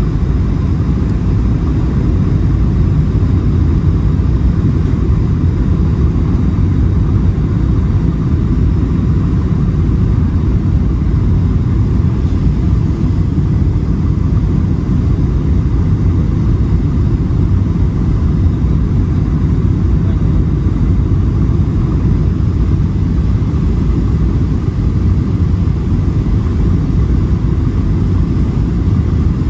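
Steady low rumble of a Boeing 737's CFM56 turbofan engines and rushing air, heard inside the passenger cabin during the descent toward landing.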